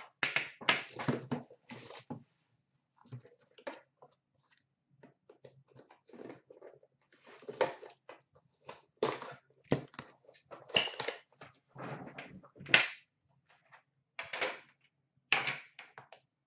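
Hands handling Upper Deck The Cup metal card tins and their wrapping: irregular knocks, clatter and rustling, the loudest a sharp knock a little past two-thirds of the way through.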